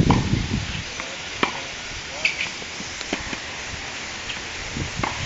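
Faint sharp pops of a tennis ball struck by a racket and bouncing on the hard court, a second or two apart, over a steady outdoor hiss.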